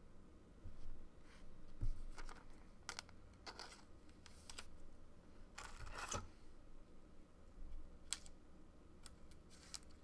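Faint, scattered clicks and short rustling scrapes from trading cards and plastic card sleeves being handled on a desk, about a dozen spread irregularly, the longest rustle about six seconds in.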